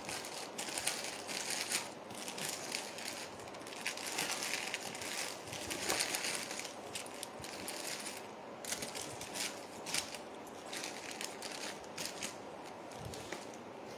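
Crinkling and rustling of packaging being handled, with many small crackles throughout.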